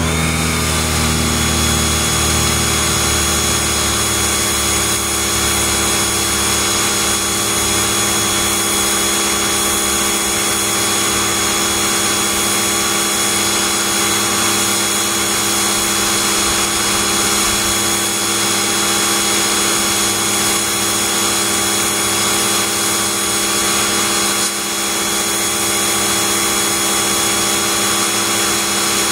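Pressure washer running steadily, its wand spraying a jet of water onto concrete.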